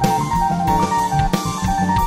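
A funk band playing live: drum kit and electric bass under a Roland RD-800 stage piano playing a quick line of short notes.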